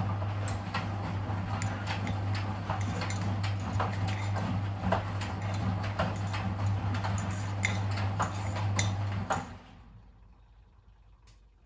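Miele WS 5405 front-loading washing machine tumbling a wash: a steady motor hum with the load clicking and knocking irregularly against the drum. About nine and a half seconds in the hum dies away and it goes almost silent for a couple of seconds.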